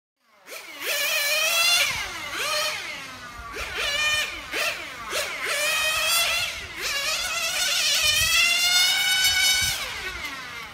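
Small nitro engine of an XRAY NT1 1/10 touring car (an FX .12) revving hard and dropping off again and again as the car laps, a high buzzing note that falls and climbs roughly once a second. It starts about half a second in.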